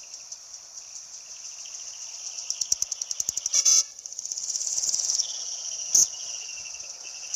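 Insects chirring steadily in a high, pulsing drone. About three and a half seconds in, a brief loud horn-like toot cuts across it, and there is a sharp click near the six-second mark.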